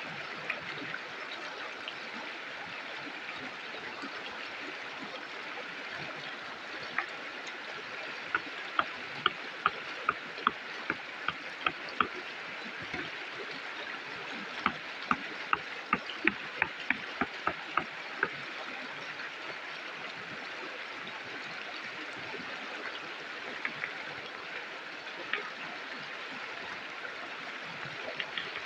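A stream of flowing water rushing steadily. Two runs of sharp clicks at about two a second stand out, both falling in the middle third.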